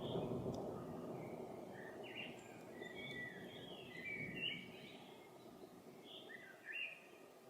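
A small songbird chirping in short phrases, twice, over the low rumble of distant thunder that fades away.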